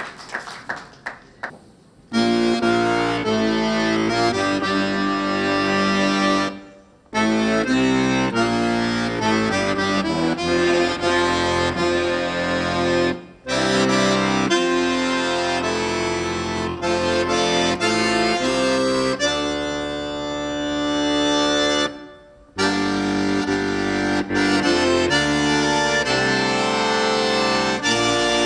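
Bayan (Russian chromatic button accordion) playing solo: full sustained chords and running lines, starting about two seconds in and broken by three short pauses.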